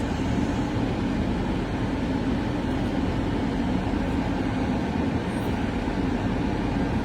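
Steady hum of a vehicle cabin, with the engine and the air-conditioning fan running.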